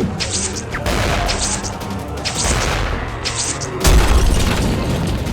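Action soundtrack music with a regular percussive beat, and a deep booming hit a little under four seconds in.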